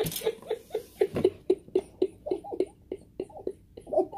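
A person laughing in quick, breathy bursts, about four a second, with no words.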